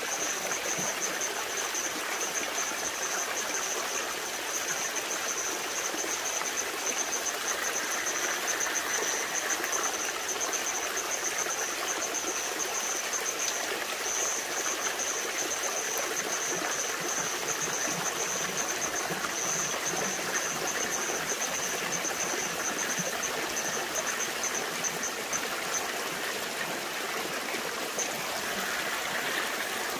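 Small stream running over rocks: a steady rush and trickle of water. A thin, steady high-pitched trill runs over it and fades out near the end.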